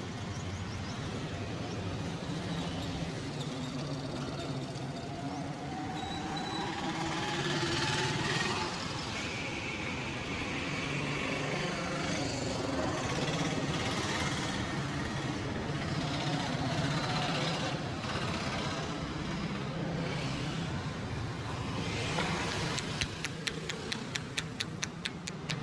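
Street traffic noise with vehicles passing and faint voices. Near the end a rapid, even run of taps starts, about four a second.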